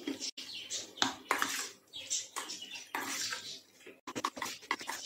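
Metal spoon stirring chicken pieces in marinade around a stainless steel bowl, with irregular scrapes and clinks of spoon against bowl.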